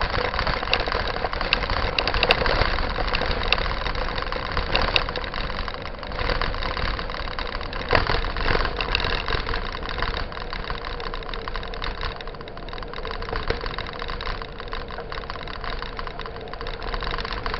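Wind buffeting the microphone and the rumble and rattle of a mountain bike rolling over a dirt road, with frequent small knocks from bumps and a faint steady hum underneath.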